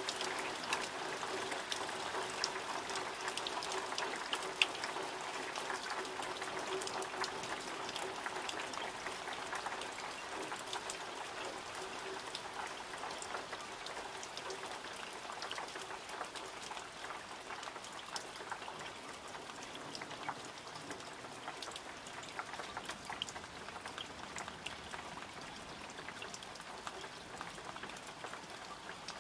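Steady heavy summer rain falling, with many individual drops ticking sharply on nearby surfaces over the even hiss of the downpour. The rain eases slightly toward the end.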